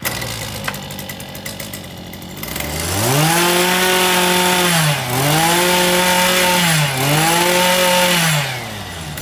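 Tanaka brush cutter's small two-stroke engine idling, then revved high three times in a row with short dips between, dropping back to idle near the end.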